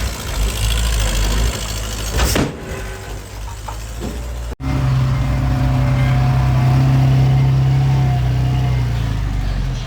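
Diesel engine of heavy earthmoving machinery running. A sudden cut about halfway through; after it the engine runs louder with a steady, even-pitched hum.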